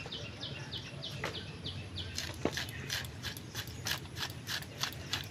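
Taro flower buds being sliced against an upright bonti blade: a rhythmic run of crisp cuts, about three to four a second.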